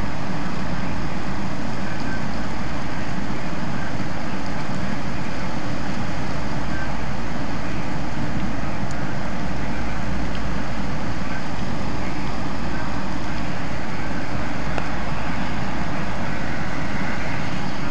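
Hurricane wind of about 40 to 45 mph and heavy rain, a steady loud rushing noise that does not let up, with a deep low rumble.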